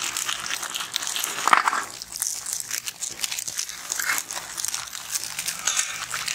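Plastic Oreo biscuit wrappers crinkling and rustling as packets are torn open and emptied, with biscuits tipped out onto a metal plate.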